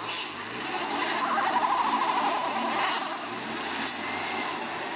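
Minivan engine revving while its wheels spin in deep mud, the van stuck and being pushed free. The revving swells about a second in, then eases a little.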